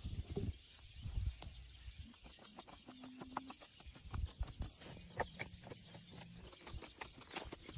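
A run of small clicks and knocks with scattered low thumps, thickest in the middle, over a steady high outdoor hiss.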